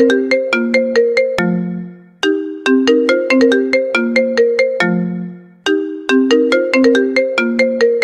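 A cappella voices imitating an iPhone ringtone. A short phrase of bright, plucky notes, each starting with a click and dying away, opens with a low held note and loops about every three and a half seconds.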